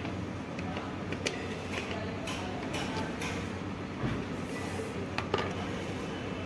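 Scattered light clicks and scrapes of hand tools on the casing of a Chevrolet Beat electric power steering control module as it is opened, over a steady low hum.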